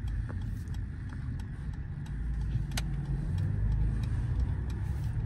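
Cabin sound of a Mercedes-AMG GLE 53 cruising: a steady low drone of its turbocharged inline-six and road noise, growing a little louder after the middle. A single sharp click a little past the middle.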